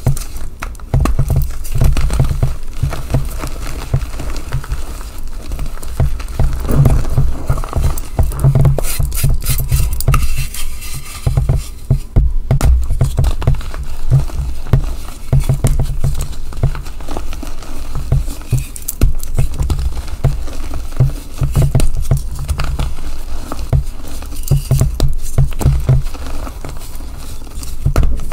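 Reformed gym chalk blocks crunched and crumbled in bare hands: a dense, continuous run of crisp crackles and crumbly crunches, with soft thuds as the pieces are squeezed.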